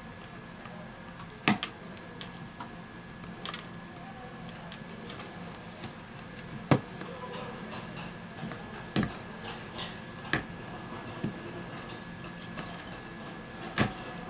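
A small metal blade scraping and clicking against a smartphone's metal midframe as old display adhesive is scraped off: scattered sharp clicks every second or few, with faint scraping in between, over a steady background hum.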